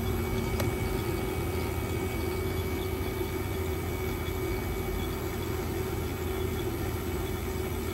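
HVAC vacuum pump running steadily as it evacuates the refrigerant circuit, a constant drone with a steady hum, with one light click about half a second in.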